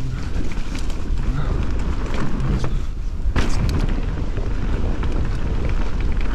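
Enduro mountain bike descending a dirt trail at speed: wind buffeting the handlebar camera's microphone over the rumble of tyres on dirt and the bike rattling, with scattered clicks and one sharp knock about three and a half seconds in.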